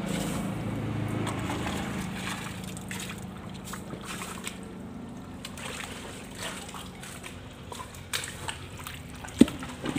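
Hands sloshing and groping in shallow, muddy canal water while feeling for fish in the mud, with scattered small splashes and a few sharper ones near the end. A low hum fades away over the first few seconds.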